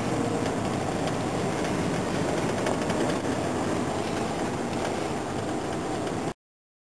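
Steady road and engine noise inside a moving patrol car, an even rush with no distinct events, cutting out abruptly to dead silence near the end.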